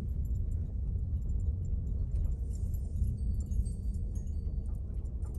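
Steady low road and engine rumble inside the cabin of a Ford Transit van driving slowly, with a few faint light rattles.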